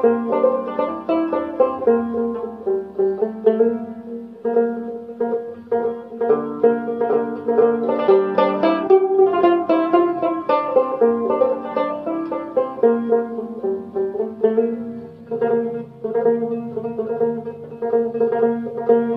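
Rubab, an Afghan plucked lute, playing an instrumental melody as a continuous stream of quick plucked notes over a steady low ringing.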